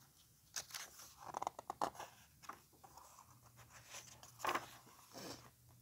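Paper page of a picture book being turned by hand: a run of irregular rustles and crinkles, the loudest about four and a half seconds in.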